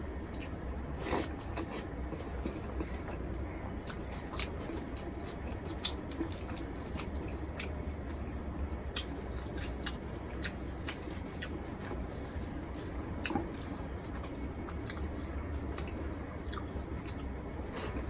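A person chewing and making wet mouth clicks and smacks while eating rice and curry by hand, with soft squishes of fingers mixing the food on a plate. A steady low hum runs underneath, and one sharper click comes about six seconds in.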